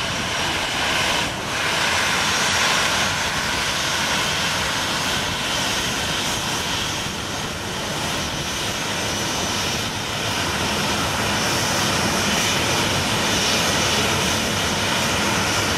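McDonnell Douglas MD-83 airliner's rear-mounted jet engines running with a steady, loud whine as the jet moves along the runway.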